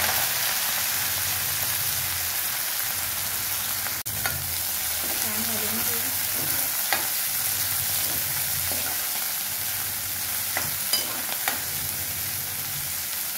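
Chopped pokala greens sizzling in hot oil in a metal kadhai, a steady loud hiss, with a steel ladle stirring them and clinking against the pan a few times.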